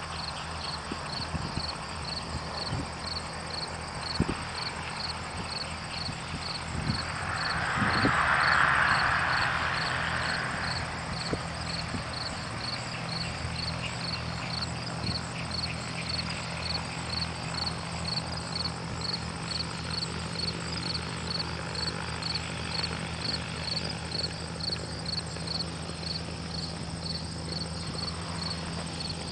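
Crickets chirping in a steady, regular rhythm over the low steady hum of a distant taxiing gyroplane's engine. A brief rushing noise swells and fades about eight seconds in.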